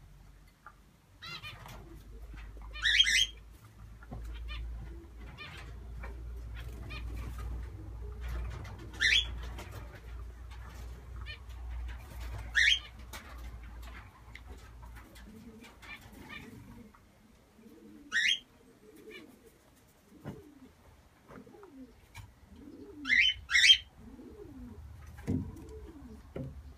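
Birds calling: a short, sharp high call every three to six seconds, and the low cooing of a pigeon in the second half. A low rumble fills the first half and fades out.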